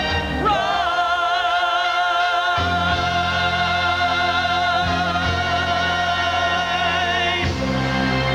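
Gospel vocal group singing a long held note with vibrato over orchestral accompaniment, the chords beneath it changing twice.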